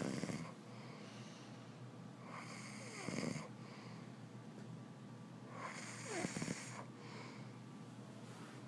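A man snoring in his sleep: three snores about three seconds apart, each a rushing breath with a rough rattle.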